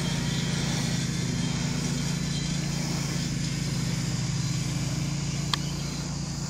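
Steady low engine-like hum with the faint, even whine of a model jet's twin electric ducted fans above it, the jet flying at a distance. A single sharp click about five and a half seconds in.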